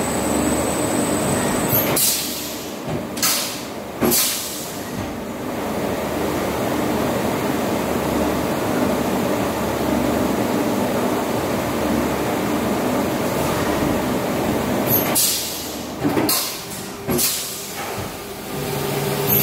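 Hyundai SKT21LM live-tooling CNC turning centre running through a machining cycle, with a steady mechanical noise. A high steady whine stops about two seconds in, and there are several short, loud bursts of hiss, a cluster near the start and another near the end.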